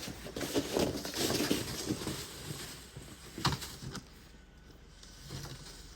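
Snow shovel working through deep snow on a driveway: a run of irregular crunching, scraping strokes that thin out and go quieter after about four seconds.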